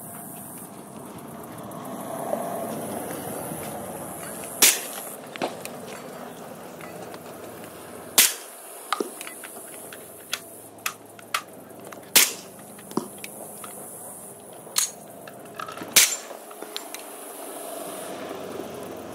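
Suppressed Ruger 1911 pistol in .45 ACP firing single shots a few seconds apart, four of them loudest. Most shots are followed a little under a second later by a fainter sharp knock.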